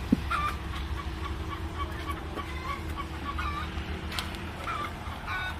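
Chickens clucking in short repeated calls over a low steady rumble, with a single sharp knock just after the start.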